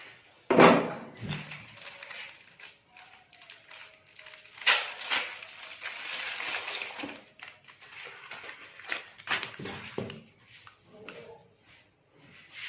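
A sharp thump about half a second in, followed by rustling and shuffling with scattered short knocks, and a louder stretch of rustling noise for a couple of seconds near the middle.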